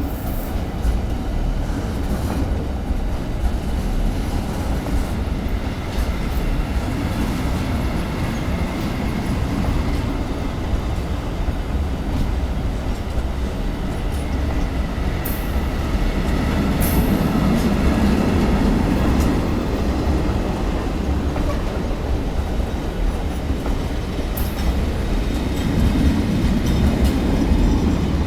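Freight train of tank wagons rolling past: a steady rumble of wheels on rail, with a few sharp clicks and swells in loudness as the wagons go by.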